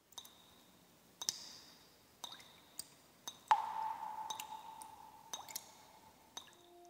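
Faint, sparse clicks at irregular intervals, each with a short high ring, like drips. A louder ping about three and a half seconds in rings on as one steady tone for about two seconds.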